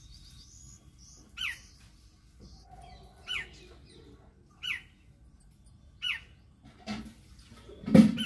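A bird calling again and again, each call a short note sliding downward, four times about a second and a half apart. Near the end comes a loud knock, the loudest sound.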